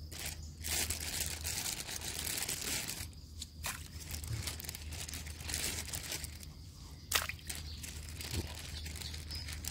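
Rustling and crinkling as vegetable and food scraps are handled and tossed into canal water, with a few sharp clicks, one louder about seven seconds in.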